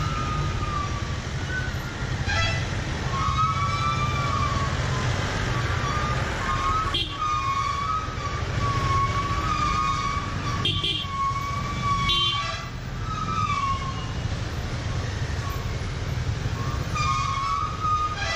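Motorcycle engine running at low speed in slow traffic, a steady low rumble. A wavering high-pitched tone sounds over it, breaking off briefly a few times.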